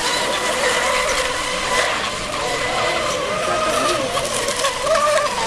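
Electric Mono 1 racing model boats running flat out, a high motor whine that wavers up and down in pitch over a steady hiss of spray.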